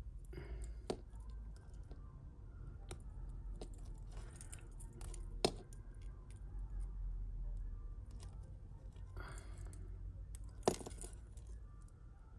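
Small metal jewellery clicking and jingling as fingers work a snagged earring free of a tangled chain. It is a run of light ticks with a few sharper clicks, the loudest near the end.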